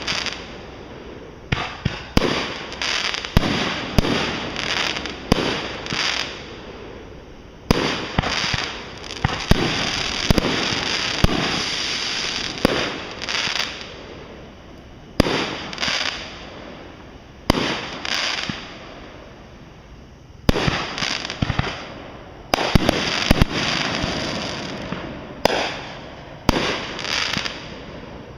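Fireworks going off one after another: sharp bangs, each trailing off in a fading crackling hiss, with two dense volleys of overlapping bursts, one early on through the middle and another later, and sparser single bangs between them.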